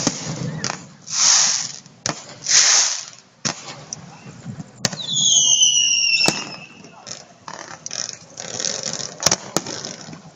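Fireworks going off: a string of sharp bangs, two hissing bursts in the first three seconds, and a falling whistle about five seconds in.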